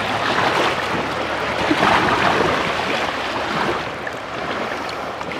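Shallow water sloshing and splashing around hands holding a snook under the surface, reviving it before release.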